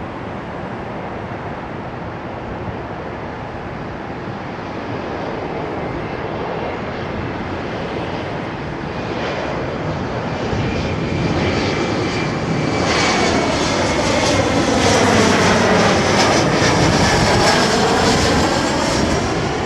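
Embraer 170 regional jet's twin turbofan engines on its landing approach, growing steadily louder as it comes in and passes close, with a thin steady whine over the rush of the engines. It is loudest in the last few seconds.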